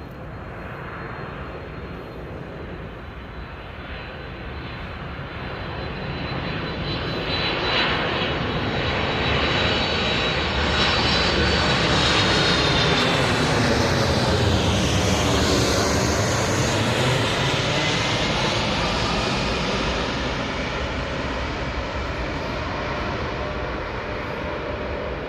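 Boeing 747-400 freighter's four turbofan engines passing close overhead on landing approach: a jet rumble and whine that grows louder to a peak about halfway through, then drops in pitch as the aircraft goes by and fades.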